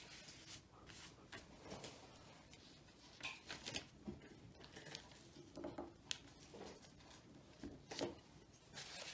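Faint, irregular rustling and a few light knocks as hands smooth a printed sheet on newspaper and roll a wooden rolling pin over it, pressing a freshly glued corner flat.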